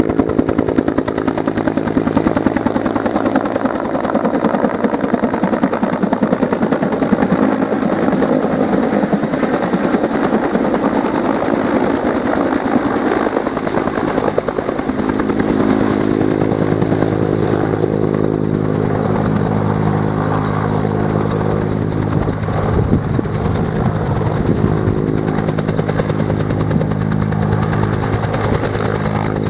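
Bell 214B helicopter flying in on its landing approach and settling into a hover: the two-blade main rotor beats fast and evenly over the running turbine engine. A steady hum of low tones grows stronger about halfway through as it comes down to hover close by.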